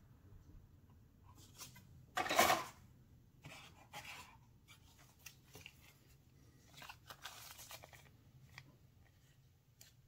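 Plastic model-kit parts being handled: a short clatter of a styrene sprue being put down about two seconds in, then light taps and rustles, with a clear plastic bag crinkling as the decal sheet is picked up toward the end.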